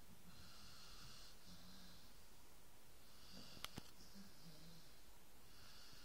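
A sleeping dog snoring faintly, a run of breathy snores every second or two. Two quick clicks a little past halfway.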